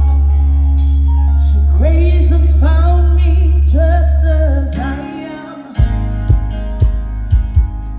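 Live gospel band sound check: a loud, held deep bass note under a singer's run of melismatic vocal lines. About five seconds in the bass stops, and spaced drum hits carry on alone.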